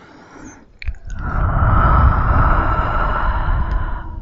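A couple of small mouth clicks, then a long breath blown close onto the microphone for about three seconds, with heavy wind rumble on the mic.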